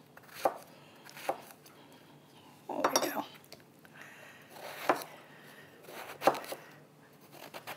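Chef's knife chopping eggplant into cubes on a plastic cutting sheet over a wooden counter: separate knocks of the blade, roughly one every second or so, with a few quick cuts together about three seconds in.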